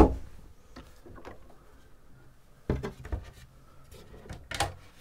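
Wood-veneered locker doors being shut and opened by hand: a sharp latch click at the start, a thump nearly three seconds in, and a softer knock near the end.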